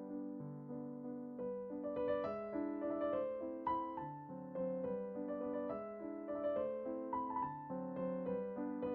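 Gentle background piano music: a melody of single notes over held chords, becoming busier about two seconds in.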